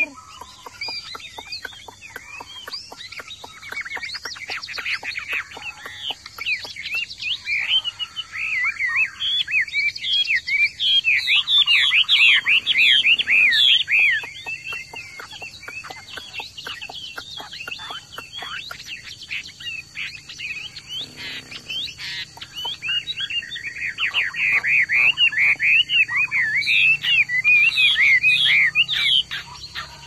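Chinese hwamei (画眉) singing a loud, varied song of rapid whistled phrases. It comes in two long, loud spells with quieter, sparser singing between.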